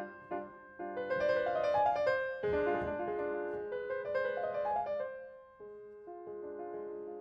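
Piano music: a slow melody of single notes over held chords.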